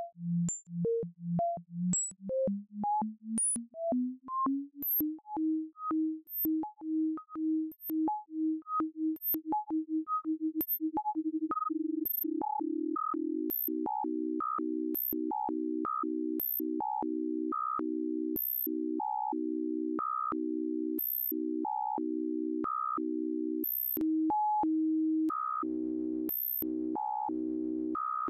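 VCV Rack virtual modular synthesizer: a low tone chopped into pulses about twice a second, the pulses speeding up and the pitch rising until they blur into a steady tone about 12 seconds in, as the LFO's modulation rate is pushed up. Over it, short sequencer blips step up and down in pitch, and near the end a denser stepped pattern with a lower part joins in.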